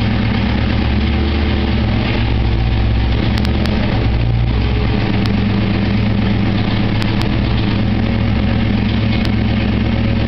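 1996 Ford Mustang GT's 4.6-litre V8 idling steadily through shorty headers, an X-pipe and a Flowmaster cat-back exhaust, with a few faint scattered ticks.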